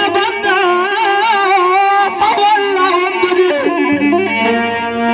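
A man's voice chanting a shillela, an Amharic war chant, with a wavering, ornamented pitch over held keyboard notes.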